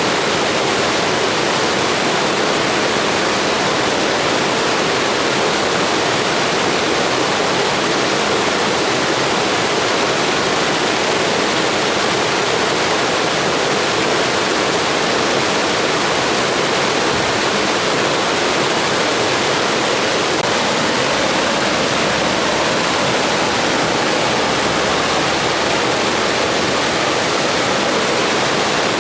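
Blizzard wind as a steady, even rushing hiss that stays level with no gusts or lulls.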